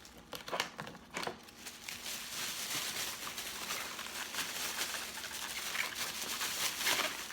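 Plastic takeout bag and food containers being handled and rummaged through: a few sharp clicks at first, then several seconds of continuous crinkling and rustling.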